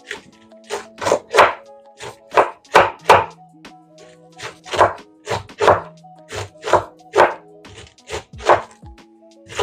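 Knife chopping purple cabbage on a cutting board, sharp strokes at uneven spacing, about two a second, with background music playing underneath.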